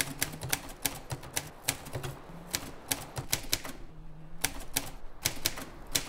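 Manual typewriter keys striking in an uneven run of sharp clacks, about three to four a second, with a short pause a little after four seconds in.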